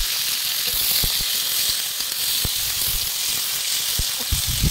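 Sliced onions sizzling in hot oil with whole spices in a large metal wok: a loud, steady hiss, just after the onions have gone in. A few dull knocks sound through it.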